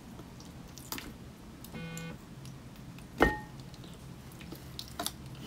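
Table sounds during an eating pause: a few light clicks, a short pitched tone about two seconds in, and one sharp clink with a brief ring a little after three seconds, like a hard utensil or shell striking a dish.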